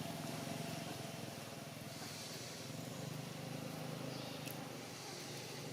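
A vehicle engine running steadily at low revs.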